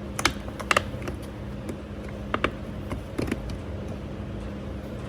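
Several sharp clicks and creaks of a carbon fiber mirror cap being handled and pressed against the side-mirror housing, some coming in quick pairs, over a steady low hum.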